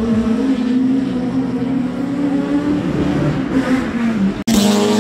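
Rallycross cars' engines running hard around the circuit. One steady engine note wavers slightly, then breaks off sharply about four and a half seconds in, and a higher engine note rises after it.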